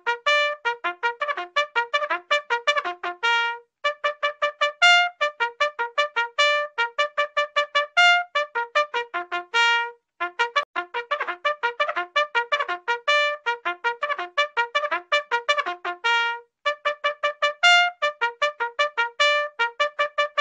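Bugle playing a fast call of short, sharply tongued notes that leap between a few pitches. The call breaks off briefly every six or seven seconds and then repeats.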